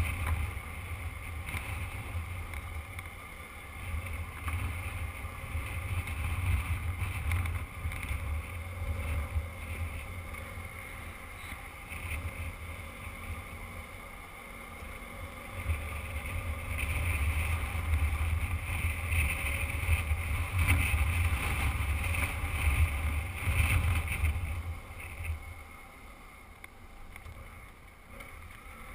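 Motorcycle riding along a gravel road, its engine and tyre noise mixed with wind buffeting the microphone; the sound drops off over the last few seconds.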